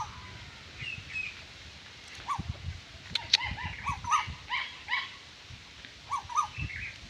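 A dog barking in short repeated barks: a couple about a second in, a quick run of barks from about two and a half to five seconds, and two more near the end.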